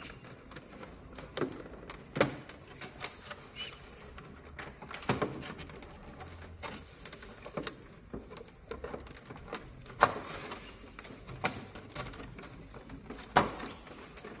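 Plastic treadmill display housing being handled and shifted: irregular knocks and clicks over low rustling, with a few louder knocks about two, five, ten and thirteen seconds in.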